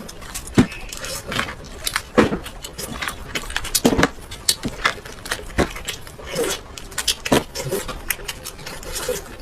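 Eating sounds: spoons and chopsticks clinking and scraping against food trays in an irregular clatter, with some voices.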